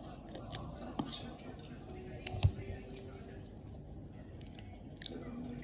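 Scattered light clicks and taps, with one louder knock about two and a half seconds in, over faint background voices.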